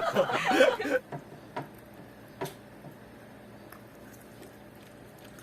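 A person chuckling for about the first second, then a hushed room with a few faint, short clicks.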